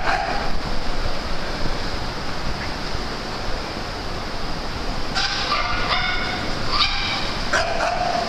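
Dogs playing, with a steady noisy background of their running and the room. From about five seconds in come several short high-pitched yips and whines, the last one longer and drawn out.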